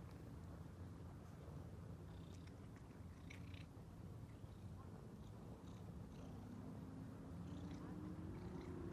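Ginger-and-white cat purring steadily and softly, a sign of contentment, with a few faint short clicks.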